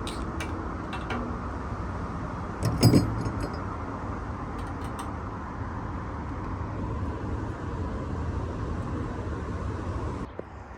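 Light metallic clinks and a knock about three seconds in as a motorcycle fuel tank and fuel pump are worked loose by hand, over a steady background rush that cuts off suddenly near the end.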